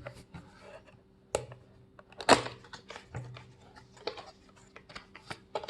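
A cardboard product box being handled and opened: scattered clicks and short rustles, with a louder sharp crack about two seconds in.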